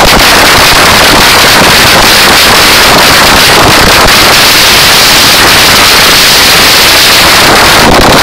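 Ground firework spraying sparks on the pavement: a continuous loud hissing crackle, with many sharp cracks through it. It is so loud that the recording is overloaded throughout.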